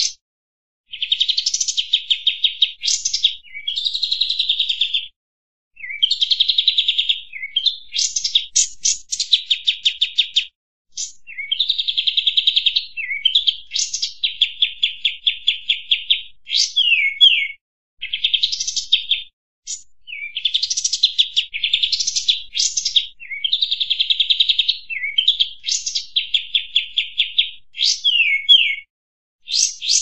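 Song of the bird known in Indonesia as kampas tembak: rapid high-pitched phrases of quickly repeated chattering notes and short down-slurred whistles, coming one after another with brief pauses between them.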